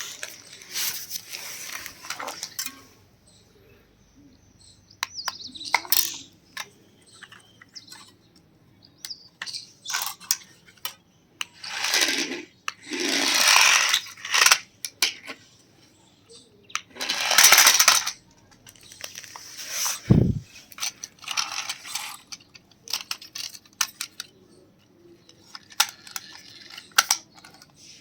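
Plastic toys being handled on a hard surface: scattered clicks and clatter, several longer scraping rushes, and a single dull thump about twenty seconds in.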